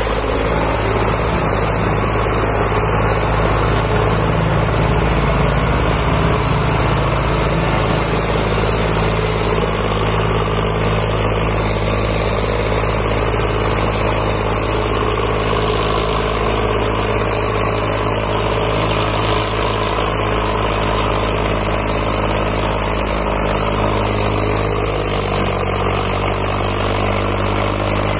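Diesel engines of a Farmtrac 60 tractor and a Swaraj tractor running together under load as the Farmtrac tows the stuck Swaraj and its loaded trolley on a chain. The engine note holds steady, shifting slightly in pitch near the end.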